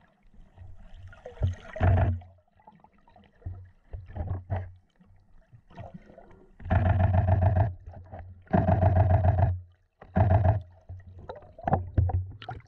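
Humpback whale calls heard underwater: a series of low, buzzing moans, the two longest lasting about a second each in the middle, with shorter grunts before and after.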